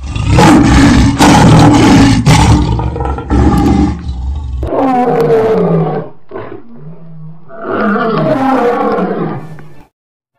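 Lion roaring: a long, loud first roar with a deep rumble, then several shorter roars that fall in pitch, cut off abruptly near the end.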